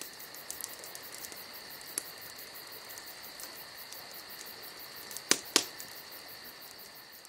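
Insects chirping in a steady, fast-pulsing chorus, with a sharp click about two seconds in and two louder clicks in quick succession a little past five seconds.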